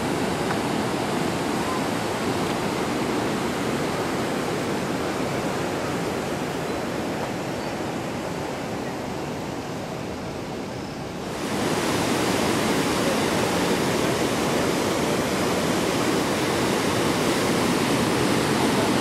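Muddy floodwater rushing over a low road, a continuous noise of churning water. It eases off gradually, then jumps suddenly louder about eleven seconds in.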